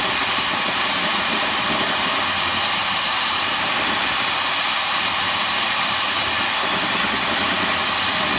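A steady, loud rushing noise from a running electric machine, with a faint high whine and no breaks or changes in speed.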